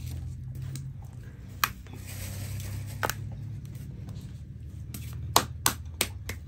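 Sun-dried fish being torn apart by hand: a rustling of the dry skin and flesh with several sharp cracks, the loudest about five seconds in, over a low steady hum.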